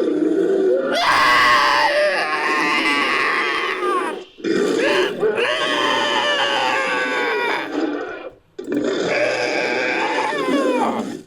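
Invented creature calls for a humanoid hawk creature, made by layering a human voice with recorded animal and bird calls. Three long, grunting, screeching calls, with a short break about four seconds in and another about eight seconds in.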